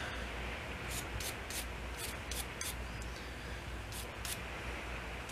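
Short scrubbing strokes on small Zexel injection-pump parts whose fuel gum has been softened by a gasoline soak: a quick run of strokes in the first three seconds and two more about four seconds in, over a steady low hum.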